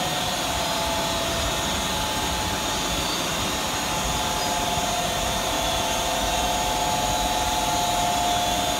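Automatic rollover car wash machine running: a steady rushing, whirring noise with a constant motor whine.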